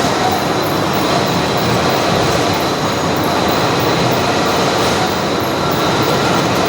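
Boring machine running steadily: a loud, even mechanical noise with a thin, steady high whine.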